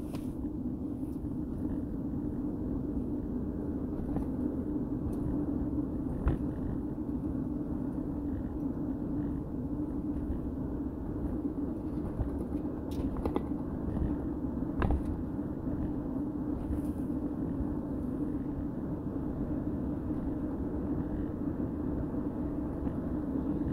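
Vehicle driving at highway speed: a steady low drone of engine and tyre noise, with a few brief clicks or knocks.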